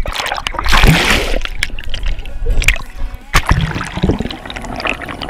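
River water splashing and sloshing around a camera held at the surface, with a loud splash about a second in and smaller splashes and knocks after it.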